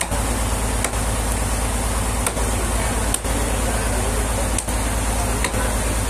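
A steady engine drone runs throughout, with a strong low hum. Over it come a few short, sharp knocks at irregular intervals as a machete chops at rotten wood in a trembesi slab.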